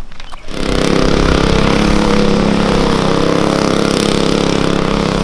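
Small gas engine of a drift trike running loud at steady high revs, starting abruptly about half a second in.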